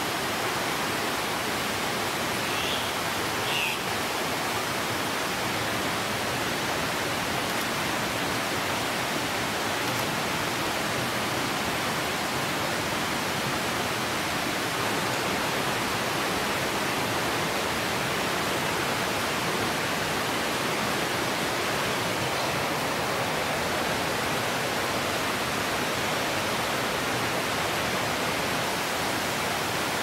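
Steady, even rushing noise with no rhythm or pitch, with two faint short bird calls about three seconds in.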